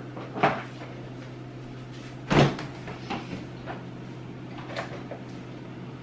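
A knock, then a refrigerator door pulled open with a heavy thump, followed by light clicks and knocks of containers being moved on the fridge shelves, over a steady low hum.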